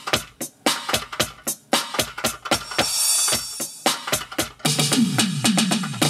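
Roland Octapad SPD-30 electronic percussion pad struck with drumsticks, playing a preset drum-kit beat at about five hits a second. A cymbal washes out about halfway through, and a quick run of hits falling in pitch, like a tom fill, comes near the end.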